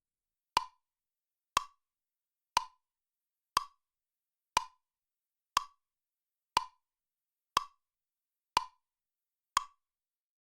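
Clock ticking once a second, ten even, identical ticks.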